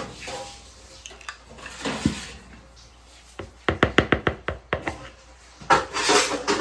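Fork clattering quickly against a mixing bowl while beating cake batter by hand, a fast run of about eight clicks a second lasting about a second, with two short rushing noises, the louder near the end.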